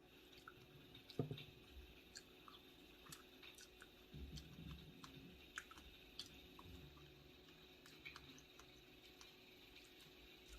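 Near silence: faint scattered small clicks and a few soft knocks over a steady low hiss, with one sharper knock about a second in.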